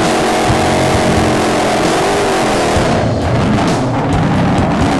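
Drag-racing Chevrolet Camaro engine running hard at the starting line, steady and loud. About three seconds in, the sound changes and shifts in pitch as the car launches down the track.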